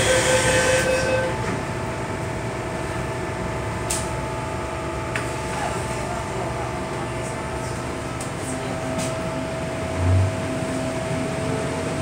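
Interior of an MTR M-train metro car at a station: the door-closing warning tone ends about a second in and the doors shut. The car's equipment then hums steadily with a few light clicks, a lower tone comes in near the end, and a short low thud sounds as the train moves off.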